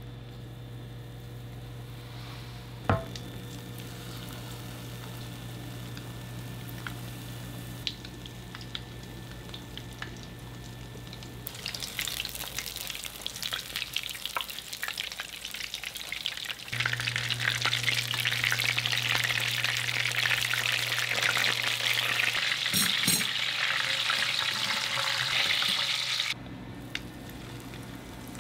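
Food frying in hot oil in a pan: a crackling sizzle starts about a third of the way in, grows much louder about halfway, and cuts off suddenly near the end. A steady low hum runs underneath, with a single sharp click about three seconds in.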